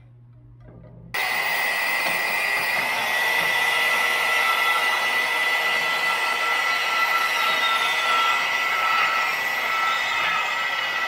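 Milwaukee portable band saw running and cutting through the aluminum tube neck of an intercooler end tank, a steady high whine over a rasping cut that starts suddenly about a second in.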